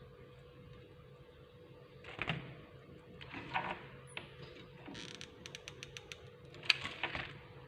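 A series of knocks, clicks and rattles from things being handled, with a quick run of small clicks and one sharp, loudest knock near the end, over a faint steady hum.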